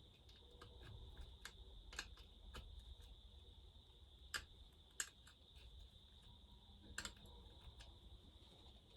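Scattered light clicks and taps of hand tools and small metal parts while a McCulloch chainsaw is being unbolted, over a faint steady high-pitched tone.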